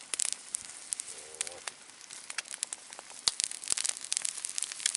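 Wood campfire crackling and popping under a frying pan of minced meat and eggs, with sharp irregular snaps that come thicker in the second half.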